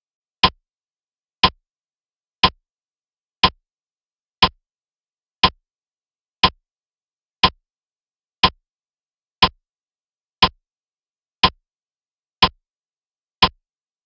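Countdown-timer sound effect, a clock-like tick once a second, fourteen ticks in all, counting down the seconds left to answer.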